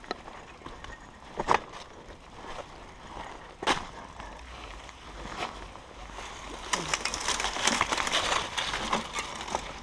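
Kona Process 134 mountain bike moving over a rocky dirt trail, with tyres crunching gravel and the bike rattling. A few sharp knocks come in the first half, then a denser stretch of crunching and clatter about seven seconds in.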